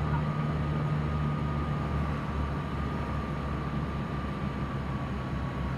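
Steady cabin drone of a Piper Seminole's twin piston engines and propellers on approach, a low hum with a thin high whine that eases slightly lower in pitch.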